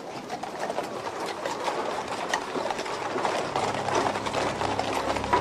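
Bustle of a dense street crowd with scattered clattering. A low held note of music comes in about three and a half seconds in.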